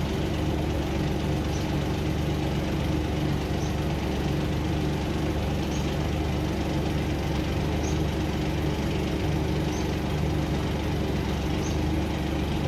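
Steady low hum of an idling engine, with a short faint high chirp repeating about every two seconds.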